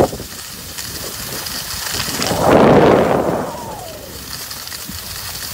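Skis sliding over packed snow, with wind rushing over the phone's microphone. A louder rush swells about two and a half seconds in and dies away a second later.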